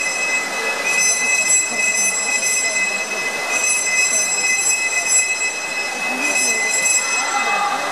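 Reverberant indoor pool hall during a swimming race: a wash of crowd noise with faint shouting voices, overlaid by a shrill, steady whistle-like tone that holds for a few seconds at a time and breaks off twice.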